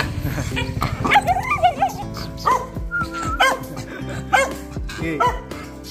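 A small dog barking: a quick run of yips about a second in, then single barks roughly once a second. Background music plays throughout.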